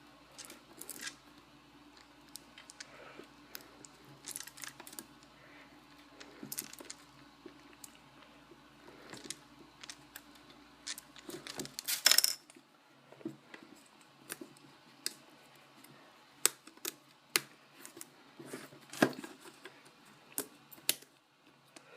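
Scattered clicks, taps and scrapes from working at a sealed Apple Mouse box, trying to pry it open by hand. About twelve seconds in comes a short, louder scraping rustle.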